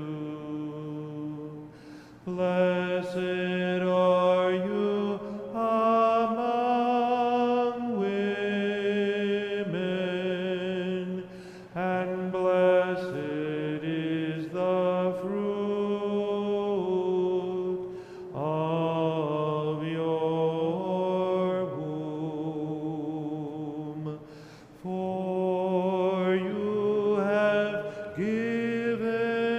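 Slow Eastern-rite liturgical chant sung by voices, long held notes in phrases with short breaks between them.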